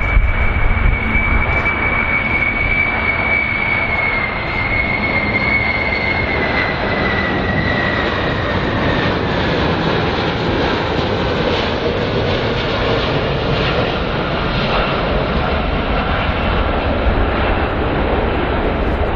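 Boeing 747 (VC-25A) jet engines on landing approach: a steady rushing jet noise with a high engine whine that drops slightly in pitch about four to eight seconds in.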